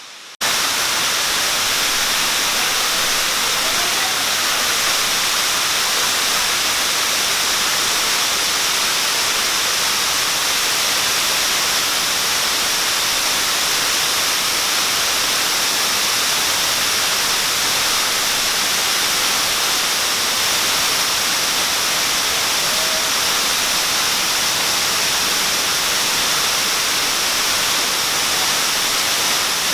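Waterfall rushing: a steady, even hiss of falling water that comes in abruptly about half a second in and then holds level.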